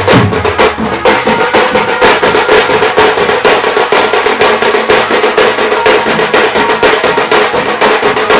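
Music of rapid, steady drum strokes with a sustained tone held over them.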